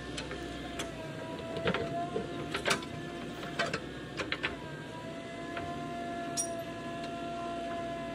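Backhoe loader's engine and hydraulics running with a steady whine that sags slightly in pitch for a few seconds before it recovers. Scattered sharp knocks and clicks sound over it, most of them in the first half.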